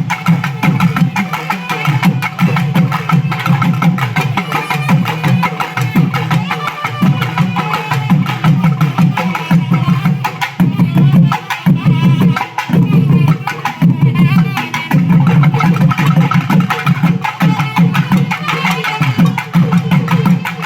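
Drums and other instruments playing together: fast, dense drumming with a strong low note that keeps dropping out and coming back.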